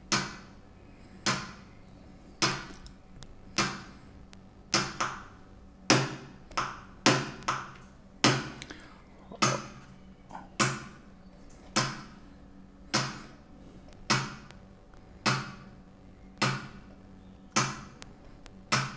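Loudspeaker on a bridged TDA7293 chip amplifier giving a sharp pop about every second, each one fading quickly, with a few coming closer together around the middle. The owner takes the popping for a sign that one of the amplifier ICs has failed.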